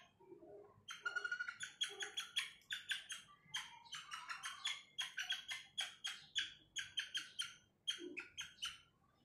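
A junglefowl hen giving a fast run of short, sharp chirping calls, about four or five a second, starting about a second in and going on for some eight seconds.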